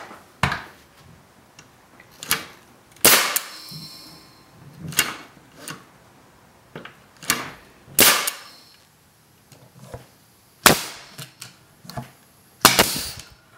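Pneumatic nail guns firing nails into wood: about nine sharp shots, irregularly spaced a second or two apart, some followed by a short hiss of exhaust air.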